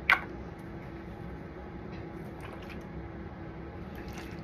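A single sharp click at the start, then a few faint taps over a steady low hum.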